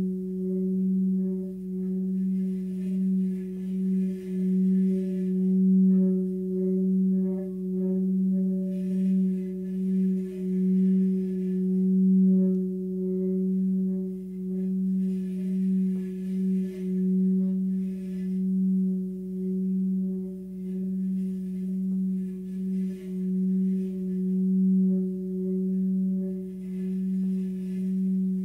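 Large 44 cm Tibetan singing bowl holding a steady singing tone near its 180 Hz F–F# note, with fainter overtones above and a slow pulsing waver in loudness. A faint rasp of the stick rubbing the rim comes and goes every few seconds.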